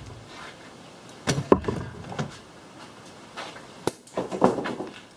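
Several scattered knocks and clatters of objects being handled on a workbench, with quiet rustling between; the sharpest knock is about a second and a half in.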